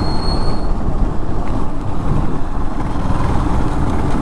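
Steady wind and road noise from a vehicle on the move, picked up by a GoPro microphone. A short, high, whistle-like tone sounds near the start.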